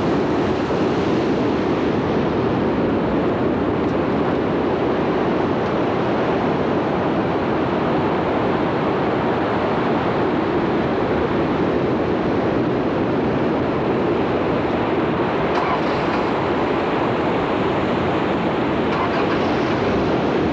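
Steady rushing noise of ocean surf and wind on the camcorder microphone, even and unbroken.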